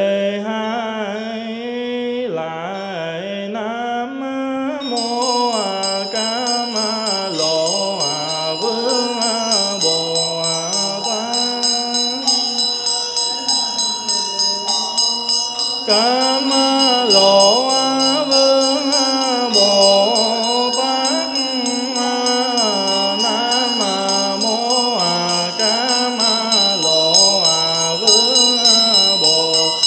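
A monk sings a slow, melismatic Buddhist memorial chant in one wavering voice. From about five seconds in, a small bell is rung in a quick, steady rhythm beneath it.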